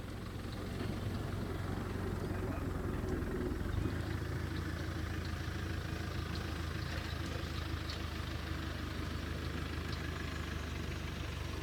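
Vehicle engine running steadily, building up over the first second and then holding a low even hum.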